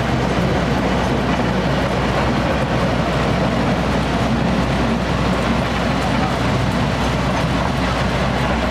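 Toy train running steadily along its track, heard from aboard an open passenger carriage.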